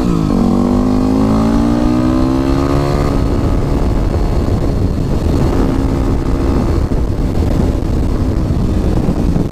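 Yamaha WR250R's single-cylinder four-stroke engine accelerating on the road, its pitch rising steadily through a gear for about three seconds. It then shifts up and runs on at speed, half buried under wind noise.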